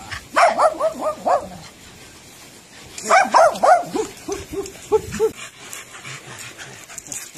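A dog yipping: a quick run of short high yips, another run about three seconds in, then a string of lower-pitched yelps.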